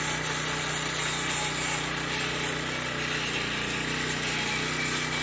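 Husqvarna Soff-Cut 150 early-entry saw running steadily, its small gas engine driving a diamond blade through green concrete as it cuts a contraction joint along the slab.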